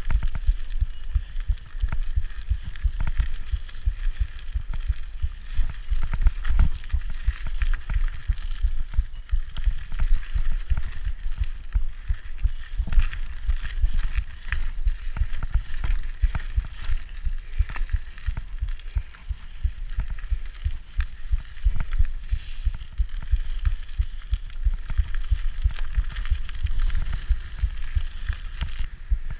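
Rigid 1990 Peugeot Hurricane mountain bike riding fast over a dirt and gravel trail: knobby Michelin Wildgripper tyres crunching and hissing on loose dirt, with the frame rattling and clicking and the jolts coming through as dense, irregular low thumps.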